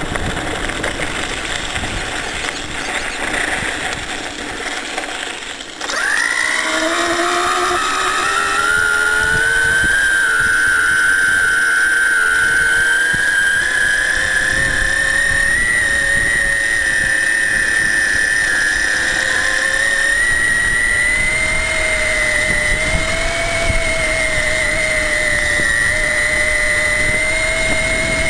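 Tyres and wind rushing on a dirt track for the first few seconds, then, about six seconds in, the Astroflight RC motor and its pulley reduction drive come on with a sudden high whine. The whine rises in pitch as the bike picks up speed, then holds fairly steady under power with slight rises and dips.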